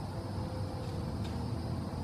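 Steady low outdoor background rumble, with one faint click a little past a second in.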